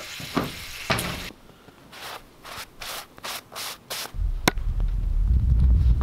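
A run of about eight quick rasping scrapes, roughly three a second, then from about four seconds in a steady low rumble of wind on the microphone outdoors, with one sharp click just after it starts.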